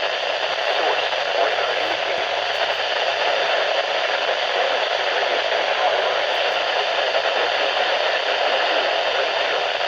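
Steady hiss of static from a weather radio receiver: an even noise that runs on without breaks.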